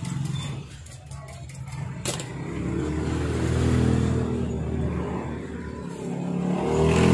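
A motor vehicle engine running, swelling louder around the middle and again near the end, with a sharp click about two seconds in.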